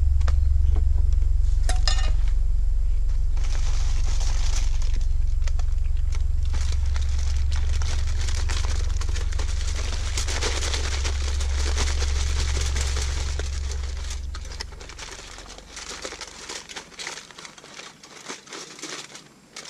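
Aluminum foil crinkling and rustling as it is folded and crimped by hand around a foil-packet dinner, over a steady low rumble that fades out about fourteen seconds in.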